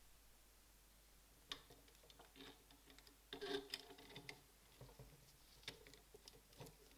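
Faint, irregular light clicks and taps, with a small flurry about halfway through.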